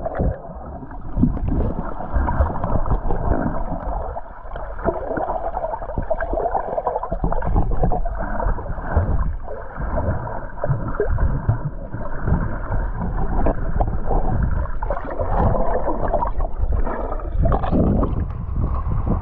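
Muffled underwater sound of a swimmer under the sea: water churning and gurgling around a submerged microphone, with surges as the swimmer moves.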